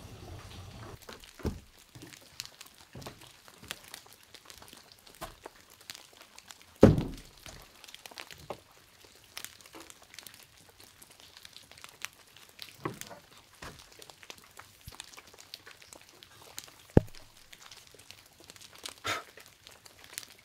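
Scattered knocks and handling sounds on a wooden cabin porch: footsteps on the deck boards and a metal mug set down on a wooden plank. The loudest is a single low thud about seven seconds in, with a sharp knock near the seventeen-second mark.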